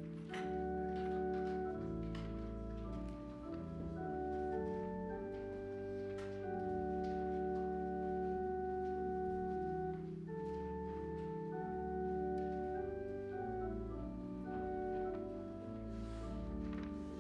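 Church organ playing a slow hymn tune in sustained chords, the notes held steady and changing every second or so.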